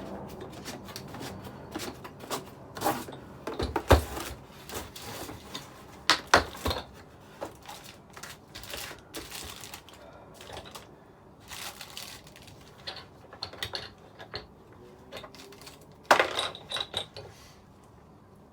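Cardboard sleeve and tool-kit case being handled and slid apart, with rustling and irregular clicks and knocks. The loudest knocks come about four and six seconds in, with a cluster near the end.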